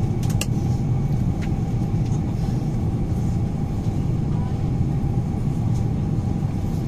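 Steady cabin noise inside an Airbus A350-900 airliner descending to land: a dense low rumble of engines and airflow with a faint steady hum over it. A couple of faint clicks come about half a second in.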